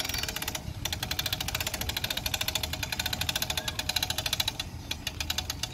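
Hand-cranked boat trailer winch ratcheting as its strap pulls the boat up onto the trailer: rapid, even clicking of the ratchet pawl at about ten clicks a second, pausing briefly near the start and slowing near the end.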